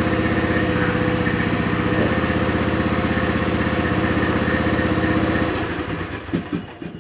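Riding lawn mower engine running steadily, then shut off about five and a half seconds in and winding down, with a knock as it stops.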